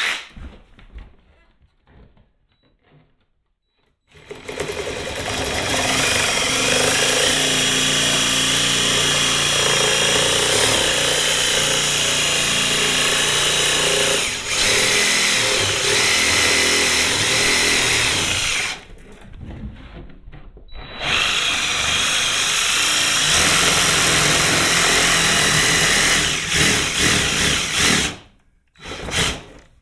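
Reciprocating saw (Sawzall) cutting through the Club Car DS golf cart's plastic front body to join the hole-saw holes for a headlight opening. It runs in two long cuts, the first about fifteen seconds, then a brief stop, then about seven seconds more.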